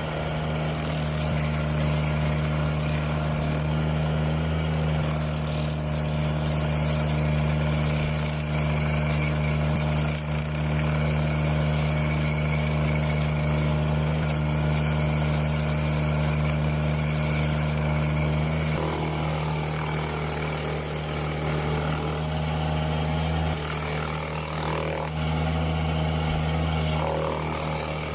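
An engine running steadily at a constant speed, a low, even hum whose tone shifts slightly about two-thirds of the way through.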